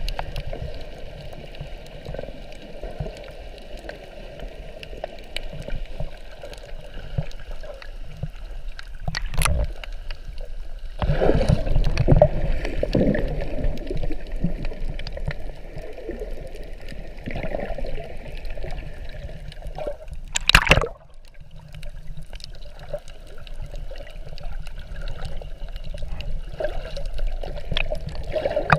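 Muffled underwater water noise recorded through a GoPro's waterproof housing while snorkelling: steady gurgling and sloshing, louder for a few seconds about a third of the way in, with two sharp knocks, one before that louder stretch and one about two-thirds in.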